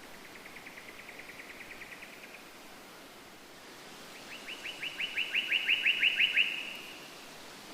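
Two bird trills over a steady hiss: a faint, fast trill of short notes near the start, then a louder, slower trill of quick down-sweeping notes about four seconds in.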